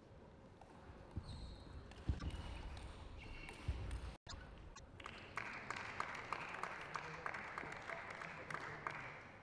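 Table tennis ball bouncing in a run of light, quick clicks, a few a second, starting about halfway through over a steady noise in the hall; a few dull knocks come before it.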